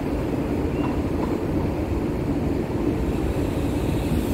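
Steady wind rumbling over the microphone on an open ship's deck, a dense low rush with no clear pitch.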